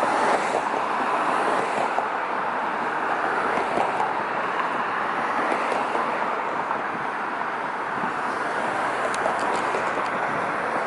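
Steady road traffic noise: cars passing on a busy multi-lane road, an even hiss of tyres and engines.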